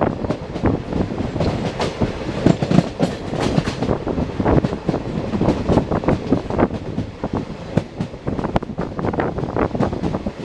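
A passing train's wheels clattering over the rail joints: a rapid, uneven run of knocks over a steady rumble.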